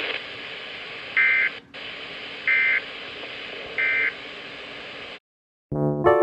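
Emergency Alert System end-of-message signal: three short, identical buzzing data bursts about a second and a quarter apart, over a steady hiss, marking the end of the alert. The hiss cuts off abruptly about five seconds in, and keyboard chords begin near the end.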